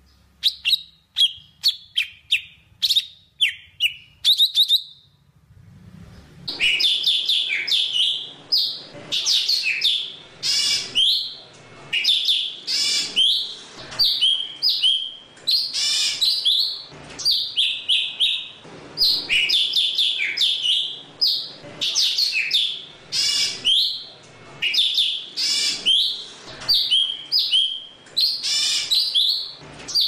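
Golden-fronted leafbird singing: a string of short separate chirps for the first few seconds, then a fast, varied song of quick whistled notes in phrases of a second or so with short breaks between them.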